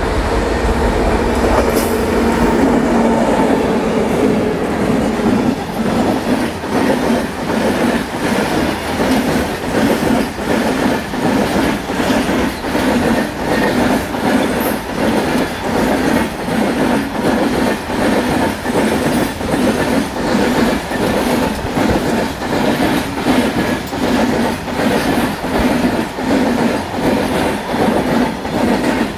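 Freight train wagons rolling past close by, their wheels clattering over rail joints in a steady clickety-clack of about one and a half beats a second. For the first five seconds or so, a steady hum from the twin WAP7 electric locomotives passing runs with it.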